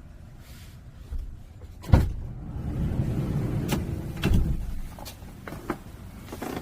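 Fittings of a converted Hyundai Staria camper van being handled: a sharp knock about two seconds in, a low rumbling slide for about two seconds, then several short clicks and knocks, like a door or cabinet being worked.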